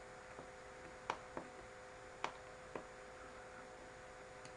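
Computer mouse clicking: two pairs of sharp clicks, about a second apart, over a faint steady hum.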